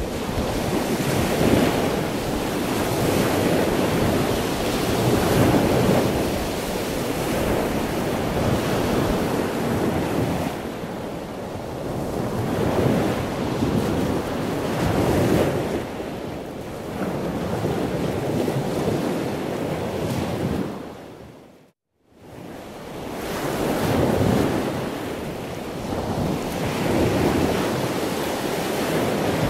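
Sea surf with wind: waves washing in, swelling and falling back every few seconds. The sound fades out to silence for a moment about three-quarters of the way through, then comes back.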